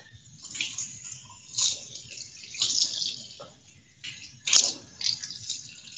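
Food being handled by hand at a kitchen counter by the sink: irregular bursts of rustling, watery noise, with one sharp click about four and a half seconds in.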